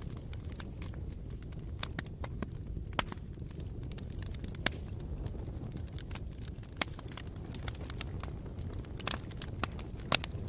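Campfire burning, with a steady low rumble and irregular sharp crackles and pops of burning wood, a few louder pops among them.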